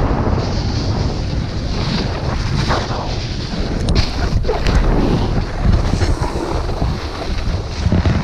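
Loud wind buffeting the microphone of a pole-held GoPro, a heavy low rumble, over the hiss and scrape of a snowboard carving across groomed snow, swelling with each turn.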